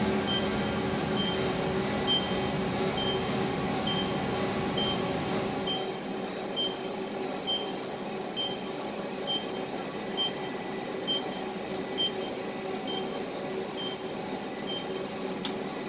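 Steady hum of running machinery on a factory floor, with a short high-pitched beep repeating just under once a second, like a warning or reversing alarm. A single click sounds near the end.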